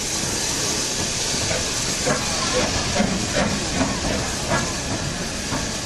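LNER K4 steam locomotive 61994 The Great Marquess moving slowly with steam hissing from it: a steady hiss, with several short, louder sounds in the middle.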